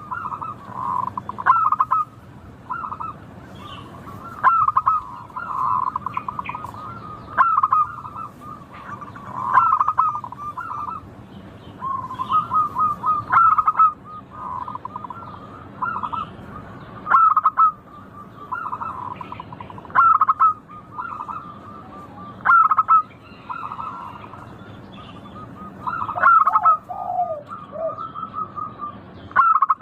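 Zebra dove (perkutut) song: short bursts of rapid, trilled coos repeating every two to three seconds, with a lower-pitched call near the end.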